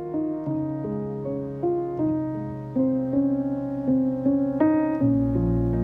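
Background piano music: a gentle melody of single sustained notes over held lower notes, with a deeper bass note coming in near the end.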